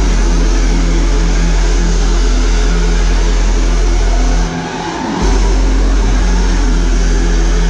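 Heavy dubstep played loud through a festival sound system, with a deep, steady sub-bass under dense bass-synth tones. The sub-bass cuts out for under a second around the middle, then drops back in.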